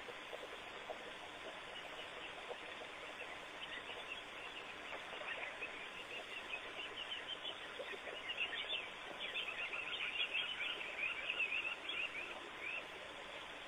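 Rapid, high-pitched chattering animal calls. They start sparse, grow into a dense, louder flurry about eight seconds in, and stop shortly before the end, over a steady hiss.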